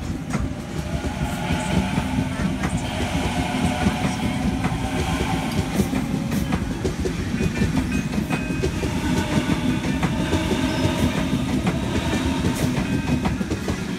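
Sydney Trains Waratah electric train moving past the platform, a continuous rumble with wheels clicking over the rail joints and steady tones above it.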